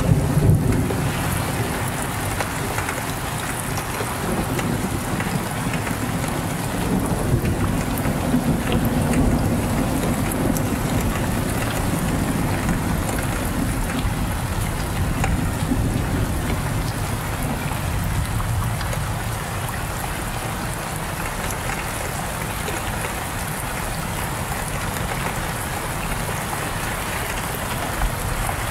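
Steady heavy rain, with a low rumble of thunder dying away in the first second or so.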